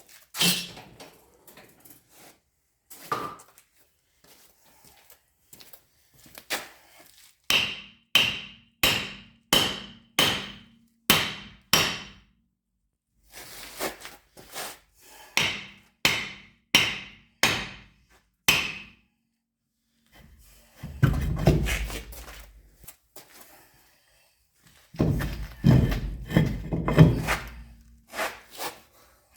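Hammer blows on steel brake parts of a truck's rear wheel: two runs of sharp metallic strikes at about two a second, each blow ringing briefly, followed near the end by two longer, noisier stretches of metal-on-metal work.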